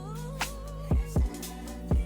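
Hip-hop/R&B background music with a heavy kick-drum beat and a wavering melody line over it.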